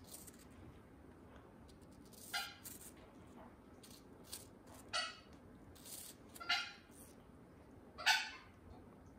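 Umbrella cockatoo giving four short, sharp calls while eating a piece of apple, roughly one every second and a half, the last the loudest.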